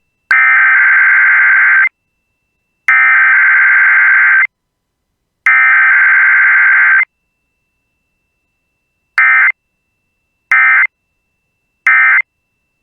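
Emergency Alert System SAME data tones for a Required Weekly Test: three long digital data bursts of about a second and a half each, the message header, then after a pause three short bursts, the end-of-message code.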